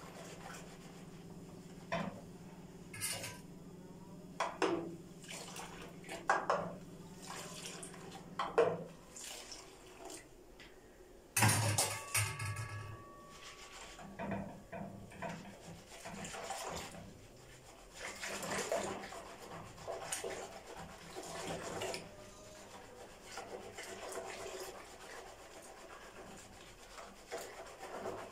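Wire hand whisk beating milk mixed with yogurt starter in a bowl: irregular rubbing, swishing strokes with light clicks of the wire against the bowl. A louder knock about 11 seconds in.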